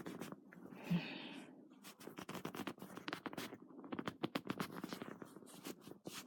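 Quiet scratchy rustling and handling noise: a dense run of small clicks and scrapes, with a short low thump about a second in.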